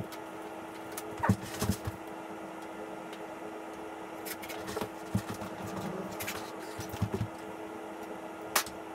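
Scattered light clicks and knocks from hands and tools working on an electric mountain bike, over a steady hum.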